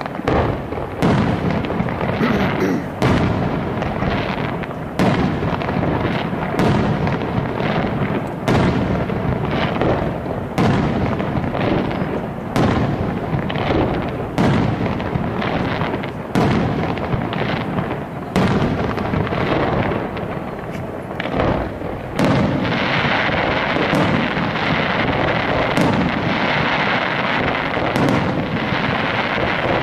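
Aerial fireworks display: shells bursting with a loud bang every second or two over a bed of crackling. From about two-thirds of the way through, a steady, dense hiss fills in between the bangs.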